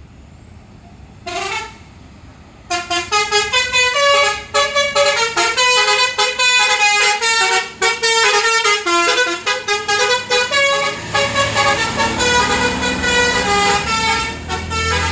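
Tour bus's 'basuri' telolet horn: a short toot, then a long, fast melody of musical horn notes stepping up and down. The bus engine's low rumble grows louder near the end as the bus pulls away.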